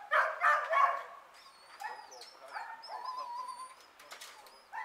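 A dog barking three times in quick succession, then softer whining calls, while small birds chirp high and thin in the background.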